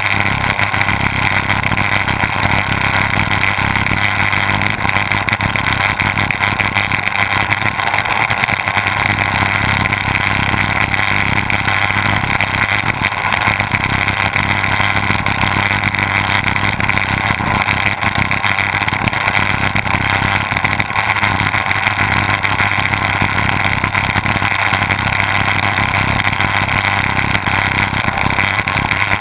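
Twin Mercury OptiMax two-stroke outboard engines running steadily at racing speed, heard from the boat's stern, mixed with a constant rush of wind and spray.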